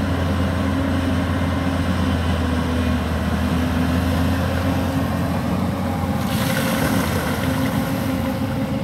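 Hyundai 220-9SH hydraulic excavator's diesel engine running steadily under load as the machine digs and lifts. From about six seconds in, a rushing sound of sand and gravel pouring from the bucket is added on top.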